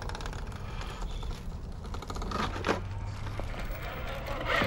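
Electric drivetrain of a scale RC rock crawler working over granite, with a few sharp knocks of tyres or chassis on the rock, one about two and a half seconds in and one near the end.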